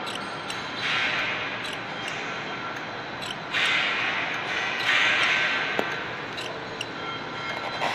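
Slotting machine cutting a keyway: the ram strokes up and down, and each cutting stroke makes a louder burst of scraping metal-cutting noise every one to three seconds over the steady running of the machine.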